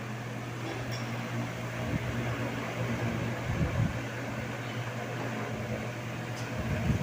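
Tron 60 cm wall fan running: a steady motor hum under an even rush of air, with a few low gusts of air about halfway through.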